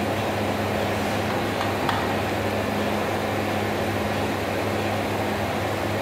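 Tekno Stamap Croymat croissant production line running: a steady low electric-motor hum with an even whir as the dough-sheet conveyor turns, and a faint tick about two seconds in.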